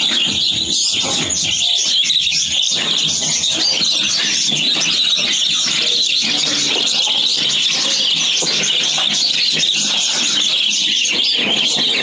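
A large flock of caged budgerigars chattering and chirping without pause, a dense, high-pitched twittering.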